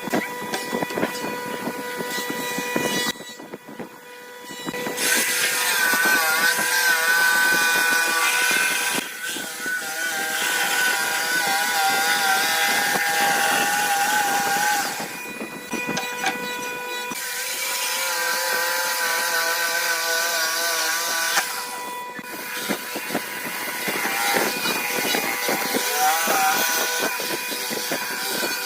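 Woodworking power tools running and cutting wood, with a whine that wavers in pitch under load, in several stretches separated by short breaks.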